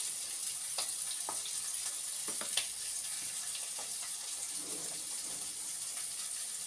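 Salmon fillet frying skin-side down on a griddle, a steady sizzling hiss, with a few light knocks of a wooden spatula stirring a pot of thick spinach cream sauce.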